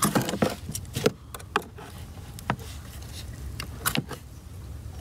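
Pliers working the fuel return line clips off diesel injectors: a string of short, sharp clicks and small metallic rattles at irregular intervals.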